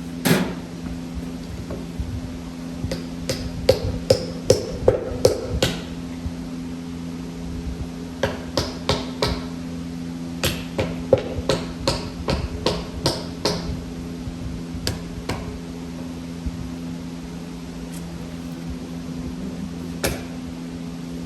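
A hand hammer striking repeatedly in short runs of quick blows with pauses between, then a few single blows near the end.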